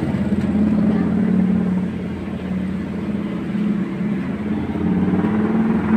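An engine running steadily with a low, fast-pulsing hum, dipping slightly in level about two seconds in and rising again near the end.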